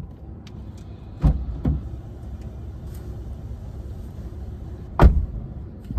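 Dull thumps inside a parked car over a low steady rumble: two about a second in, and two louder ones near the end, the last of them a car door shutting.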